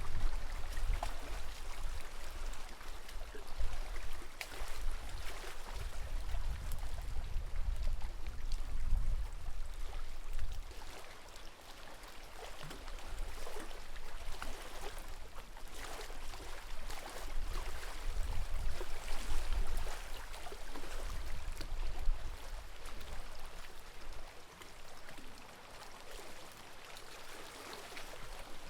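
Lake water lapping and splashing in small, irregular splashes, over a low rumble that is strongest in the first few seconds.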